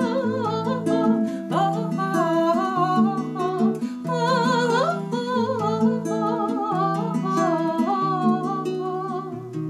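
A woman singing with vibrato to her own classical guitar accompaniment, the guitar playing bass notes and chords under the melody.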